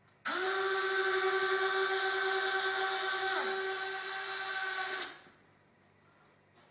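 Electric motor driving an F-104 landing gear mechanism, whining at a steady pitch for about five seconds before stopping sharply.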